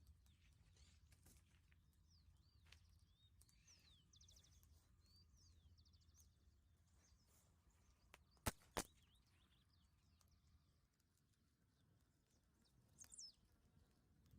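Faint birdsong, scattered chirps and a quick trill, over a low steady outdoor rumble. Just past halfway come two sharp clicks about a third of a second apart, the loudest sounds here.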